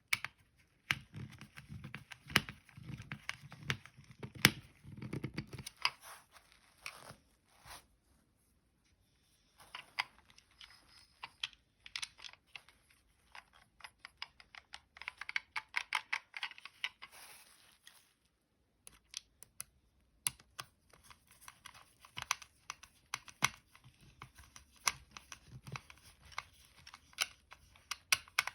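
Small plastic toy parts being handled and fiddled with: dense, irregular clicks, rattles and rustling, with a few dull knocks in the first several seconds and two short pauses.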